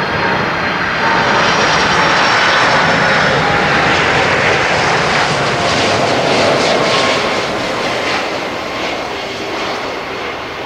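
Boeing 747-400F freighter's four turbofan engines passing close on final approach: a loud jet rush with high tones that slide down in pitch as it goes by, fading over the last few seconds as it moves off toward the runway.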